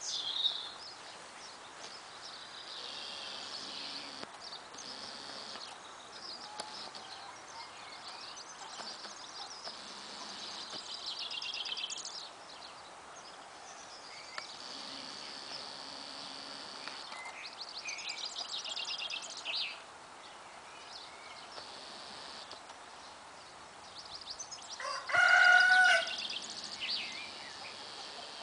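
Songbirds singing on and off in the background, and near the end a rooster crows once, loud and drawn out for about a second and a half.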